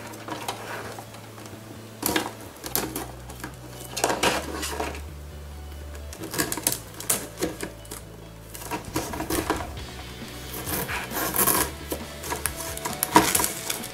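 Plastic shrink-wrap crinkling and tearing in irregular crackles as it is peeled off a cardboard model-kit box, over background music.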